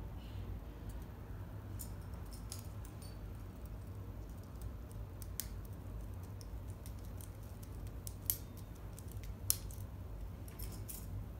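Small metal clicks and clinks of pliers working heavy steel split rings open and threading treble hooks onto a lure, scattered irregularly with two sharper clicks in the second half, over a steady low hum.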